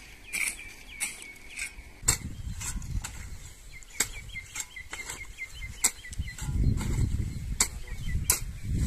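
Sharp, irregular clicks and knocks outdoors, with a rapid run of short high chirps in the middle and a low rumble building over the last couple of seconds.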